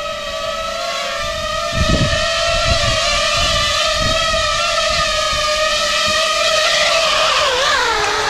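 DJI FPV quadcopter hovering close by: a steady propeller whine that wavers and drops in pitch near the end, with a few low thuds.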